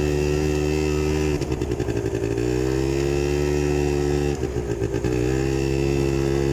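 Engine of a small ride-on off-road vehicle running steadily as it is driven over sand. Twice the engine note breaks up briefly and then climbs back in pitch as the throttle picks up again.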